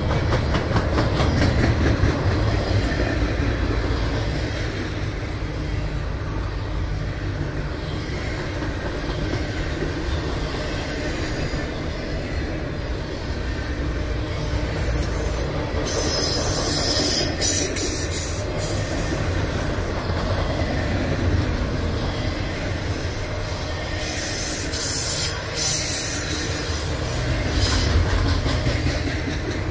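Double-stack intermodal freight train rolling past: a steady low rumble of steel wheels on rail, with high-pitched wheel squeal coming and going in several spells and rhythmic clicking of wheels over the rail joints.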